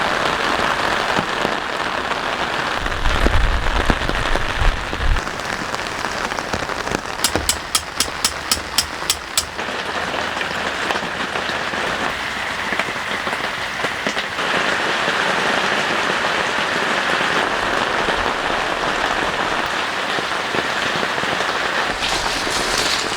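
Heavy rain pouring down, a dense steady hiss of drops on surfaces. A low rumble comes about three seconds in, and a short run of evenly spaced ticks, about three or four a second, follows a few seconds later.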